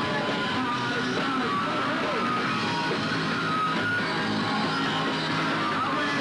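Punk rock band playing, with guitar to the fore.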